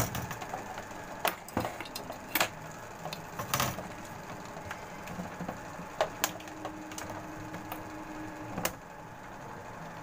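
Scattered light clicks and knocks of hands working at a small electrical board, about a dozen spread unevenly, over a steady background hum; a faint steady tone holds for about two seconds in the second half.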